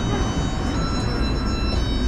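Metro train's electronic door-closing chime: steady high notes that change pitch about once a second, the warning that the doors are about to shut, over the low rumble of the train car.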